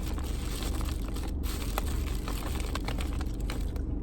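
Steady low engine hum heard inside a car cabin, with scattered light clicks and crinkles, like food packaging being handled.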